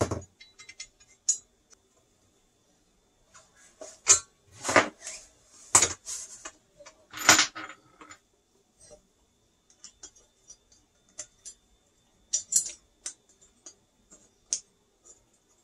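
Irregular metal clinks and clicks as bolts and a hex driver knock against the swing arm and hub motor of a Onewheel GT wheel assembly while the bolts are set in and turned. Several louder clanks come between about four and eight seconds in, with lighter ticks before and after.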